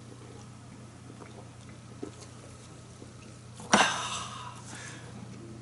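Quiet eating sounds from a person chewing fish sushi: faint small clicks and mouth noises over a steady low hum. About two-thirds of the way through comes a louder, noisy rush of sound lasting about a second.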